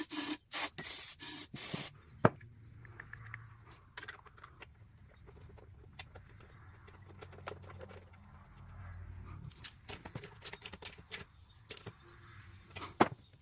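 Aerosol brake cleaner sprayed in several short hissing bursts over the first two seconds to clear a clogged lawn mower carburetor's jets. Then faint handling clicks and scrapes as the float bowl is fitted back on.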